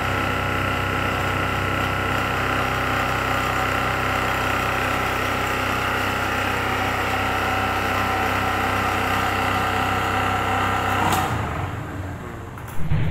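DC shunt motor running steadily with a hum and whine. About eleven seconds in there is a click, and the sound dies away over about a second as the motor is switched off and runs down. A short knock follows near the end.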